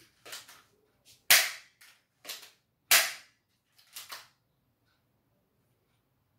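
Toy gun firing toy bullets: a string of sharp snaps and clicks, the two loudest about a second and three seconds in, with fainter ones between and two more around four seconds.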